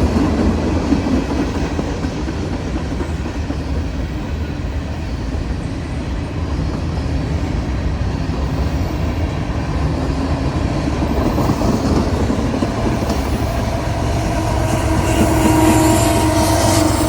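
CSX freight train rolling past at close range: a steady rumble with the clatter of wheels over the rails. A few steady higher tones join near the end.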